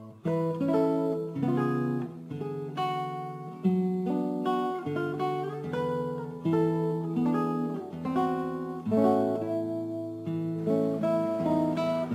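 Instrumental acoustic guitar music: single picked notes and chords over a moving bass line, each note plucked and fading.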